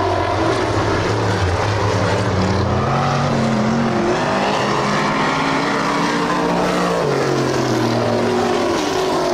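Several stock car engines running at racing speed, their pitch rising and falling together as the cars go through the turns and straights.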